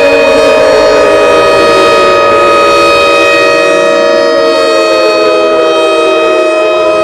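Civil defense warning siren sounding loudly: a steady wail of several pitches held together, while lower tones slide down in pitch over the second half.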